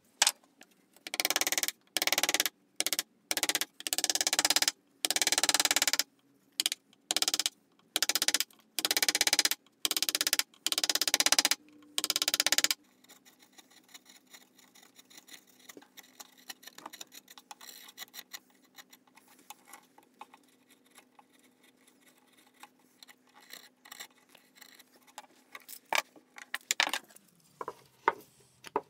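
A rasp or file worked in about a dozen loud, quick strokes of differing length along the edge of a birch saw handle, stopping about thirteen seconds in. After that, only faint scraping and light ticks of a blade paring the wood, with a few sharper clicks near the end.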